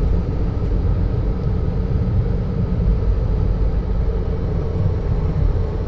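Steady low rumble of a vehicle driving on a snow-covered road, engine and tire noise heard from inside the cab.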